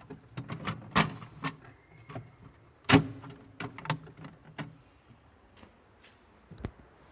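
A string of short clicks and knocks, as of hands handling and tapping refrigerator parts. The two loudest come about a second in and about three seconds in; after about four and a half seconds they thin out, with one more near the end.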